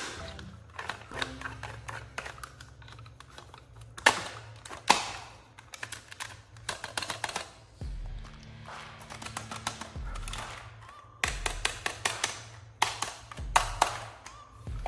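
Irregular sharp clicks and taps, some in quick clusters, of plastic toy packaging and action figures being handled during unboxing, over soft background music.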